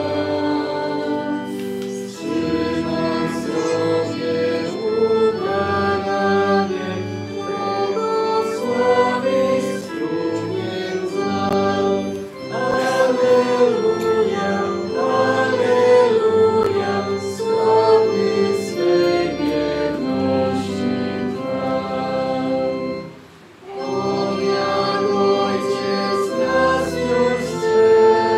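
Church congregation singing a hymn in unison phrases over sustained keyboard chords, with a brief break between lines a few seconds before the end.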